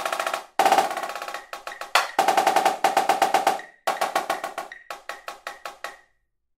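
Sampled marching snare drum (Virtual Drumline) playing a fast, accented etude passage at 160 beats per minute over a steady metronome click. The figures come in dense runs separated by short breaks, and the playing stops about six seconds in.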